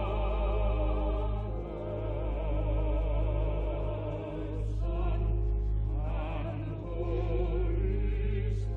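University choir singing sustained chords with vibrato, on an old tape recording with no high treble. A steady low drone runs underneath.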